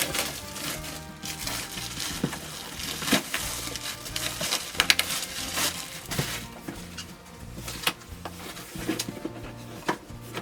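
Hands rummaging through a latch hook kit's packaging: plastic rustling and crinkling with irregular clicks and taps, over quiet background music.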